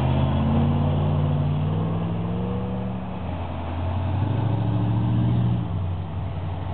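Two road vehicles drive past one after the other: a pickup truck pulls away with its engine note rising and then holding, and a second car's engine comes up about three seconds in and drops away sharply near the end.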